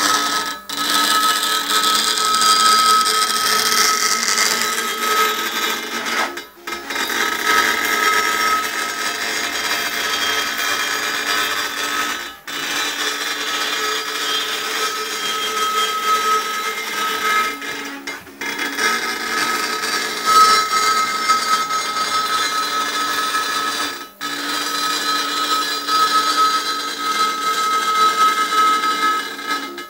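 Compact CNC impact engraving machine working: its diamond needle hammers dots into granite in a fast, continuous buzz with a steady whine. The buzz breaks off for a moment about every six seconds.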